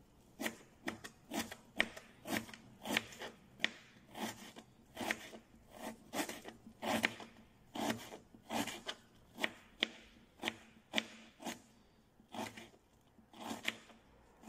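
Kitchen knife chopping red onion into small pieces on a cutting board: a steady run of short knocks, about two to three a second, with a brief pause near the end.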